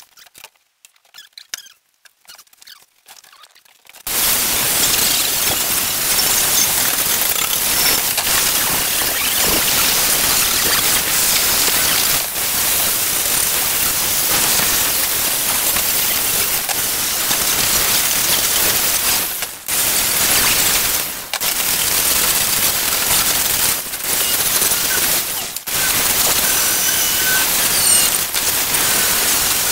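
Angle grinder with a wire wheel attachment brushing the welded steel clean for paint. After a few light clicks it starts about four seconds in and runs as a loud, steady hiss, with a few short dips.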